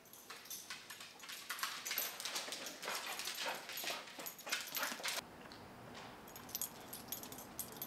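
A small dog moving about on a hardwood floor: quick clicks and scuffles, with its claws clicking on the boards. About five seconds in this drops to a quieter stretch with a few scattered ticks.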